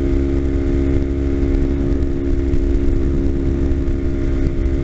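Kawasaki Ninja 250's parallel-twin engine running at a steady speed while the motorcycle cruises down the road, its note holding level without revving up or down.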